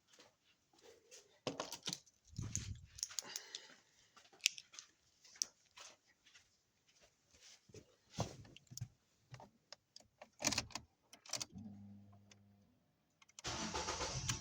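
Car keys jangling with clicks and rattles of handling, then a brief steady hum, and near the end the Ford Focus Mk3's engine cranks and catches straight away, running on.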